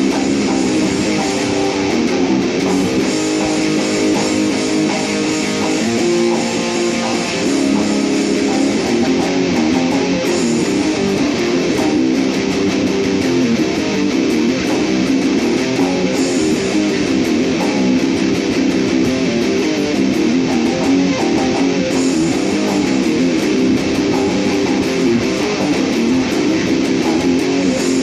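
Dean Dime ML electric guitar with a Floyd Rose tremolo, played continuously and loudly through an amplifier: a sound check of the newly bought guitar.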